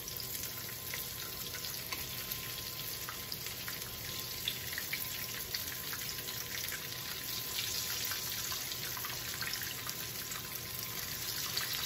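Breaded chicken strips frying in shallow oil in a deep sauté pan: a steady sizzle with many small crackling pops.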